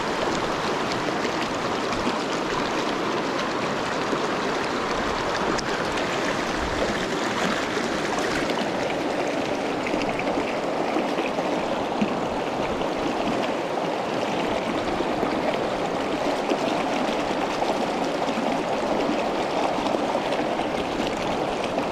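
Shallow, rocky mountain stream rushing over stones in fast riffles: a steady, even rush of water.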